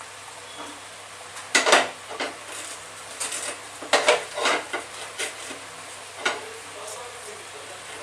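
A spatula stirring and scraping in a kadai, with about half a dozen irregular scrapes and knocks against the pan, as onion-paste masala is stirred in hot oil and ghee over a low, steady sizzle. It is the start of frying the masala until the oil separates.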